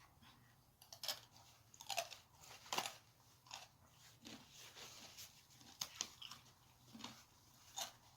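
A person chewing and biting crunchy food, with several sharp, irregular crunches.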